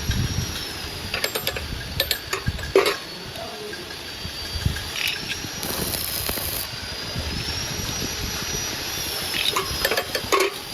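Metal clinks and knocks of hand tools working on a grass chopper's blades during adjustment, irregular sharp taps scattered through, with a cluster near the end.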